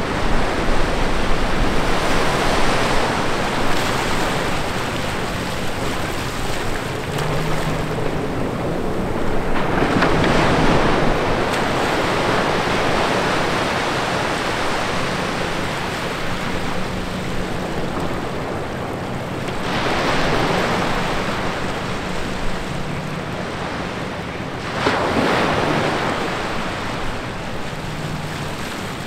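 Small ocean waves breaking and washing up over wet sand between rocks, the wash swelling and fading several times.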